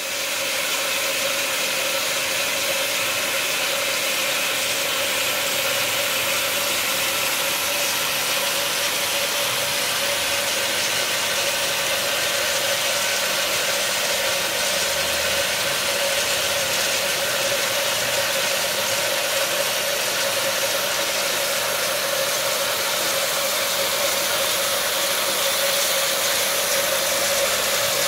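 Stainless-steel electric water pump running steadily to drive a microbubble aerator. It gives a constant hum with a steady hiss over it.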